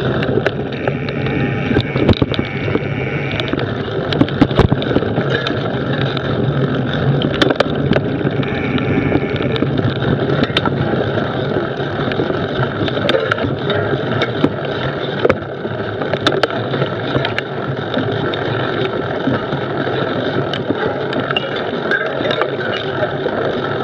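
Mountain bike ridden slowly along a leafy dirt trail: a steady rumble from the knobby tyre and bike over the ground, with frequent sharp clicks and knocks from bumps and twigs.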